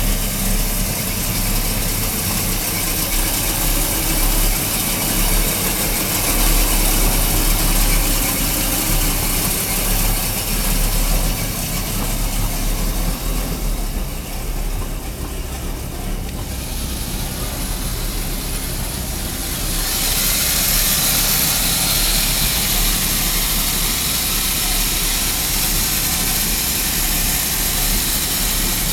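MerCruiser 7.4L V8 stern-drive engine idling steadily, with a low even hum. A hiss grows louder about two-thirds of the way through.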